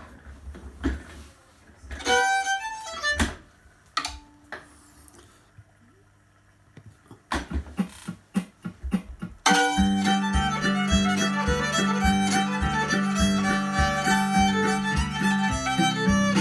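Violin (fiddle): a few knocks and short notes, then from about nine seconds in a tune played continuously over a steady beat.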